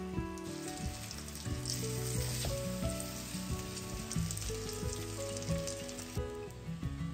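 Food sizzling as it fries in hot oil in a pan. The steady sizzle starts about half a second in and stops abruptly about six seconds in, with background music playing under it.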